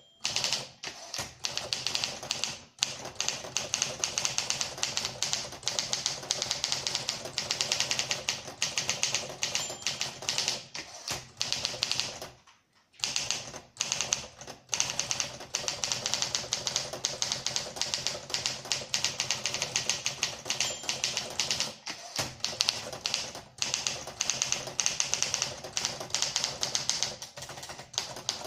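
Olympia SM4 manual typewriter being typed on steadily: a fast run of keystrokes and typebar strikes, with a short pause about halfway through.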